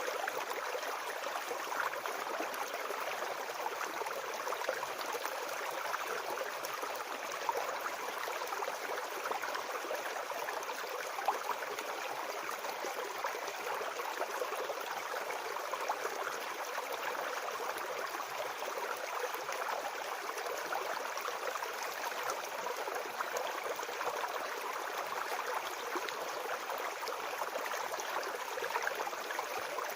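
Shallow brook babbling steadily over stones, a continuous splashing rush of water with small irregular gurgles.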